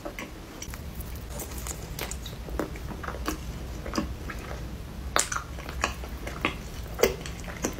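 A person chewing a soft, icing-covered cinnamon roll close to the microphone: irregular smacking clicks of the mouth working the bread and icing.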